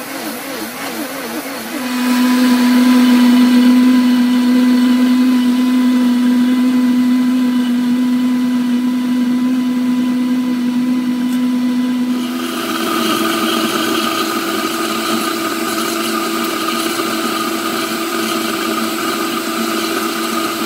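High-powered countertop blender running a long hot-soup blend of grits and water. The motor's tone wavers at first, then settles into a loud steady whine about two seconds in, and steps up to a higher, slightly quieter tone about twelve seconds in.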